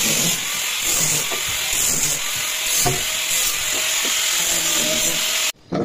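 A loud, steady hiss with faint voices underneath, cutting off abruptly near the end.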